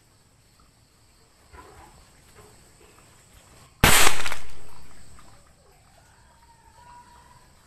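Explosive .22 air rifle pellet detonating as it hits an old phone: one sharp, loud bang a little under four seconds in, dying away over a second or so.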